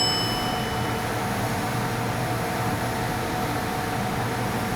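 Steady shop background hum and fan-like noise, with a high metallic ring from a small metal part being set down dying away about a second in.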